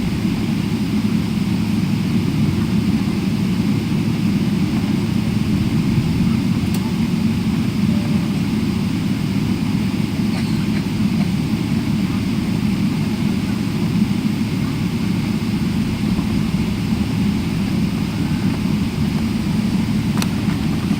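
Steady low rumble and rush of jet airliner cabin noise in flight, with a couple of faint clicks.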